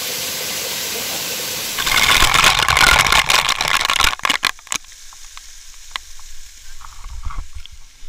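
Waterfall pouring down close by, a dense steady hiss. About two seconds in it grows louder and harsher, crackling as the water spatters right at the microphone. Near four seconds it drops away to a faint hiss with a few scattered clicks.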